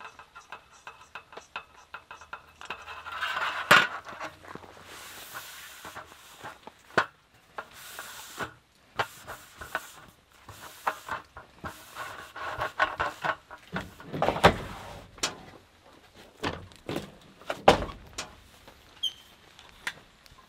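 Camp gear being handled and packed away: scattered clicks, taps and rustling as a gas canister is unscrewed from a camp stove's hose and a slatted aluminium table is wiped with paper towel, with a few louder knocks.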